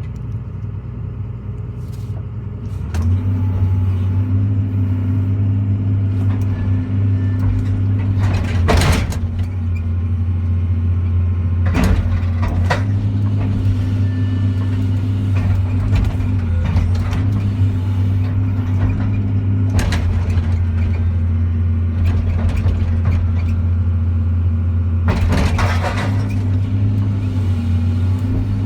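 A 200-size excavator's diesel engine running, stepping up to a higher, steady drone about three seconds in. Several loud crashes break through it as the machine smashes a forklift apart, the loudest about nine seconds in, with others around twelve, twenty and twenty-six seconds.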